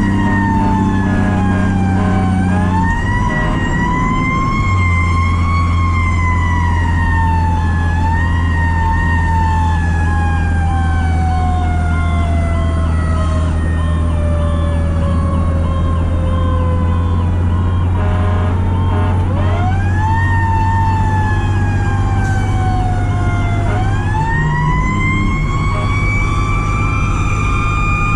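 Federal Q mechanical siren on a 2003 Pierce Dash fire truck. Its wail slowly coasts down in pitch and is spun back up several times, sharply about two-thirds of the way in and again near the end. A steady low drone runs underneath.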